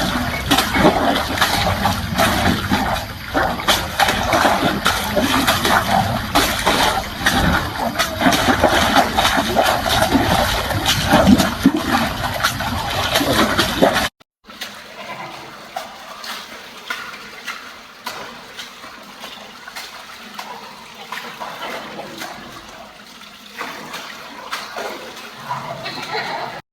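Water spraying and splashing steadily, as in showering an animal, with a dense hiss and patter. It cuts off suddenly about fourteen seconds in, leaving a much quieter stretch of faint noise.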